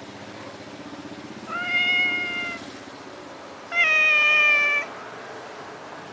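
Domestic cat meowing twice, two drawn-out meows about a second long each, the second louder.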